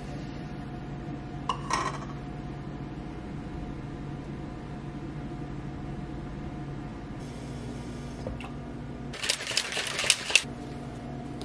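Kitchen handling sounds over a steady low hum. A brief clink of a metal spoon against the almond butter jar comes about one and a half seconds in. Near the end there is a quick run of sharp clattering knocks as a plastic shaker bottle is handled.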